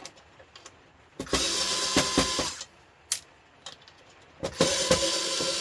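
A small electric motor whirring in two short runs of about a second and a half each, like a cordless power tool being triggered twice.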